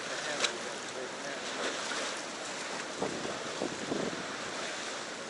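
Steady rushing noise of stream water, with wind on the microphone; a short click about half a second in.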